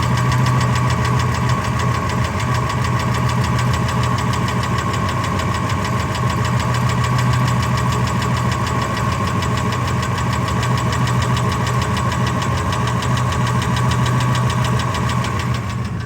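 Ford F-250 engine running steadily with a fast, even ticking. The owner suspects spark knock after finding the valve lash adjusters and rocker arms looking like new.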